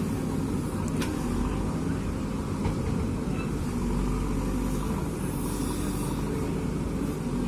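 JCB 3DX Super backhoe loader's diesel engine running steadily, with one brief click about a second in.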